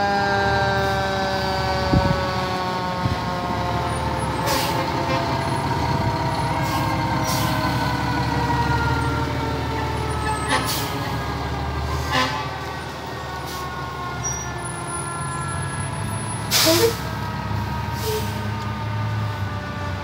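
Fire engine siren whining and slowly falling in pitch over the rumble of a heavy truck engine, with several short sharp bursts of noise spread through it.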